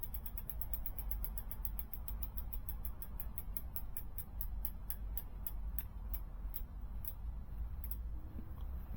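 Freewheel clicking from a spinning e-bike geared hub-motor wheel coasting down after a planetary gear replacement. A rapid ticking slows steadily to about one click a second and stops near the end, over a steady low rumble.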